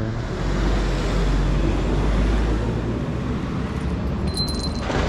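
Road traffic noise with a steady low engine rumble from vehicles, and a brief high-pitched tone about four seconds in.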